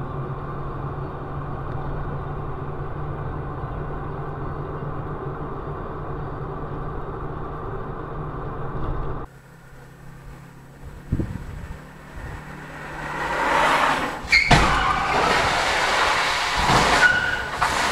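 Steady engine and tyre noise from inside a vehicle driving on a wet highway, cutting off abruptly about nine seconds in. A quieter street-traffic sound follows, with a knock, then a loud rushing noise that swells up, a sharp bang about fourteen and a half seconds in, and another heavy knock near the end.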